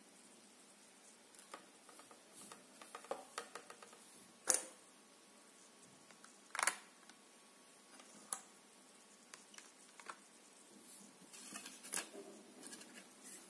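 Light plastic clicks and taps from the hinged lid and tray of a clear plastic screen-protector installation jig being opened and handled, with two sharper clicks about four and a half and six and a half seconds in.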